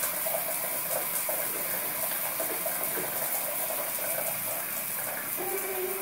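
Shower water spraying steadily onto a macaw, towel and tile, an even hiss. Near the end a held, low voice-like tone begins.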